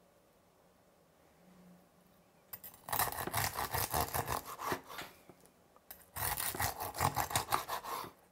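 Serrated bread knife sawing through crispy roast pork belly crackling: a dense, crunchy rasping that starts about three seconds in and runs in two spells with a short pause between.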